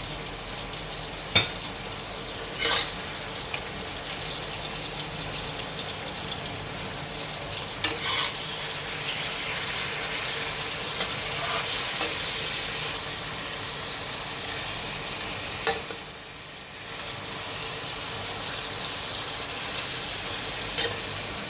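Fish and tofu sizzling in a frying pan over a medium flame, with a spatula clicking against the pan every few seconds as the food is stirred. The sizzle briefly drops off about three-quarters of the way through.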